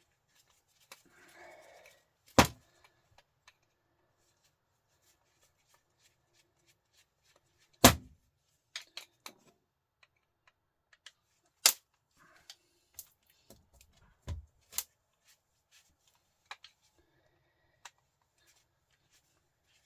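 Hand-tool work on a truck starter motor's metal parts: about five sharp, loud metal knocks spaced several seconds apart, with small clicks and clinks of tools and parts between them.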